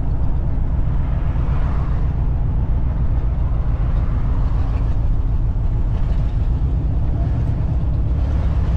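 1987 Ford F150 pickup's engine running steadily while the truck is driven, a continuous low drone. After the carburetor conversion it is still not running right.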